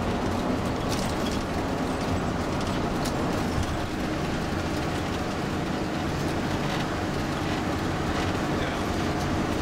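Steady engine and road noise inside the cabin of a moving Ford shuttle bus, with a few faint clicks.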